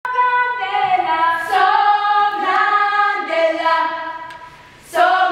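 Children's choir singing unaccompanied in several parts, holding long notes. The phrase fades away about four seconds in, and the next phrase comes in loudly near the end.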